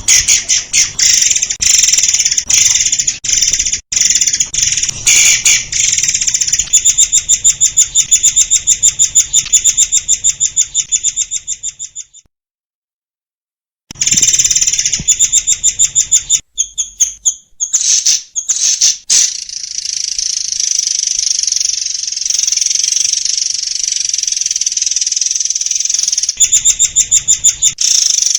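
Murai air bird singing loudly, a continuous masteran song of rapid repeated-note trills and high chattering phrases. The song cuts out to dead silence for under two seconds about 12 seconds in, then resumes with a long, even, rushing passage followed by more fast trills near the end.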